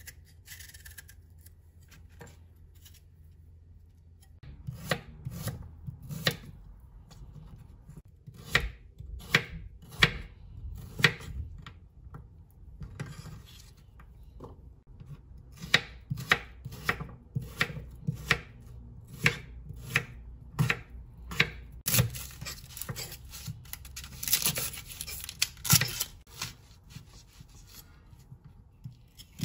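Kitchen knife chopping chayote on a bamboo cutting board: irregular knife strikes, about one or two a second, starting a few seconds in, with a denser stretch of scraping and rustling a few seconds before the end.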